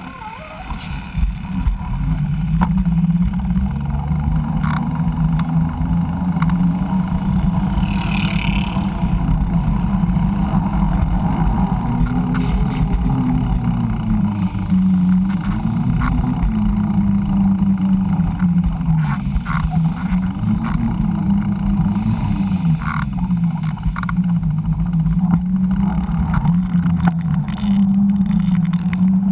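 Mountain bike's 29-inch tyres rolling on pavement: a steady buzzing hum whose pitch rises and falls with the riding speed, over a low rumble.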